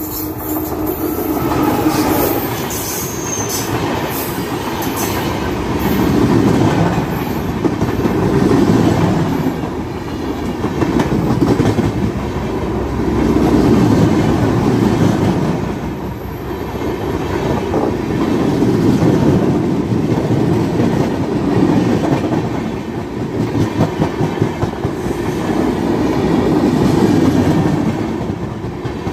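Passenger train hauled by a WAP-7 electric locomotive passing close by. Its wheels rumble and clatter over the rail joints, swelling and fading every two to three seconds as each coach goes by.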